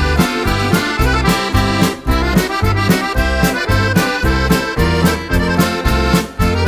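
Recorded accordion music: a polka played on accordion, with a steady alternating bass-and-chord beat.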